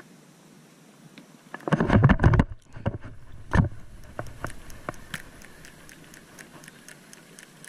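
Gloved arm and sleeve brushing and bumping against a chest-mounted action camera: a loud burst of scraping knocks about two seconds in, another single knock a moment later, then a string of faint clicks, about three a second.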